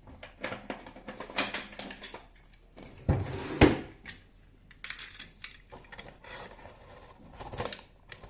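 Packaging being opened and a grease container handled: scattered clicks, taps and rustles, with two loud knocks about three seconds in.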